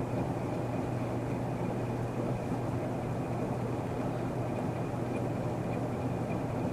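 Emerson long-nose antique ceiling fan with a shaded-pole, oil-bath motor, running steadily at a medium-high speed setting: a constant low motor hum under the even whoosh of the blades moving air.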